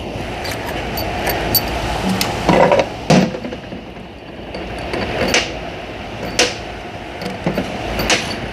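Tools and metal transmission parts being handled on a workbench: a scattered series of sharp clanks and knocks, about six over several seconds, over a steady background noise.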